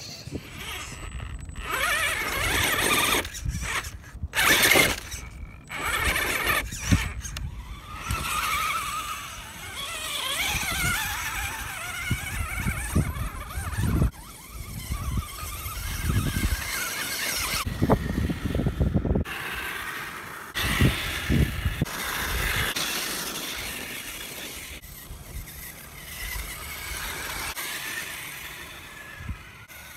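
Axial Wraith radio-controlled rock racer's electric motor and geared drivetrain whining in stop-start bursts, the pitch wavering as the throttle goes on and off. The tyres and chassis knock and scrape over rock.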